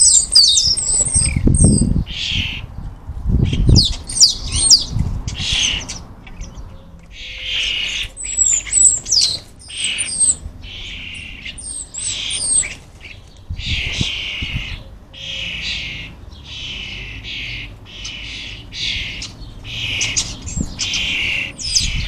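European starling fledglings giving harsh, rasping begging calls over and over, about one a second, mixed with sharp whistled chirps from adult starlings. A few low wing flutters come in the first seconds and again about two-thirds of the way in.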